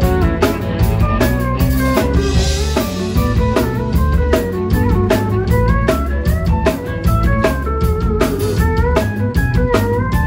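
Live country band in an instrumental break: a drum kit keeps a steady beat under bass and guitars, while a pedal steel guitar plays sliding, bending melody notes.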